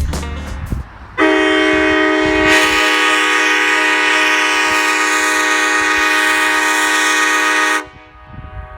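Nathan Airchime K5LA five-chime train horn (early 2000s CSX horn, bells 1, 2, 3A, 4A and 5) sounding one long, steady, multi-note chord about a second in, held for roughly six and a half seconds before cutting off sharply. A guitar music tail fades out just before the blast.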